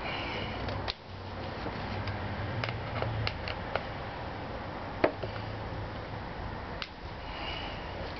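Scattered light clicks and taps of a Phillips screwdriver and gloved hands working the plastic air filter housing of a Honda Elite 110 scooter to get its four screws out, over a steady low background hum. The sharpest click comes about five seconds in.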